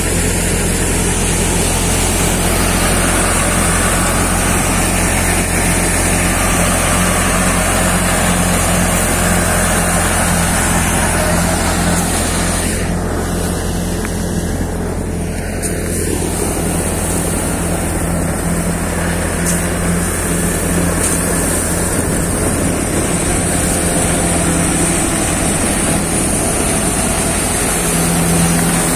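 Tractor engine running steadily under load, driving a Bharat wheat thresher, with the thresher drum's constant whir and hiss as it threshes the wheat. The sound dulls briefly about halfway through.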